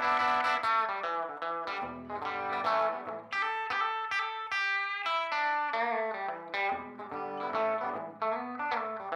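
Solo electric guitar playing blues: picked notes and chords, with a run of higher single notes about three to five seconds in while the low notes drop out.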